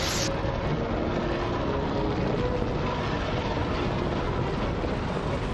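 Cartoon helicopter engine and rotor sound effect, running steadily as the helicopter flies.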